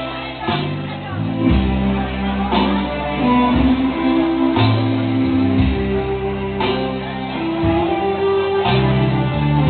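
Music playing, with held notes changing over a bass line and a slow, steady beat about once a second.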